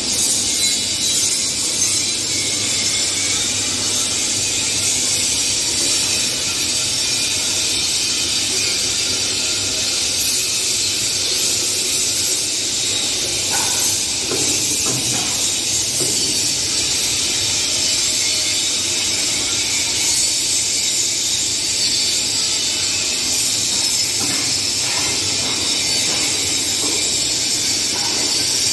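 Concrete pan mixer and belt conveyor of a block-making line running, a steady hissing machine din with a few faint knocks about halfway through.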